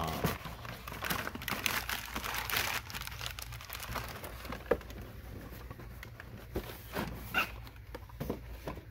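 Crumpled brown packing paper crinkling and rustling as a wooden box is handled in it and a cardboard lid is fitted back on, dense for the first few seconds, then thinning to scattered rustles and a few light knocks.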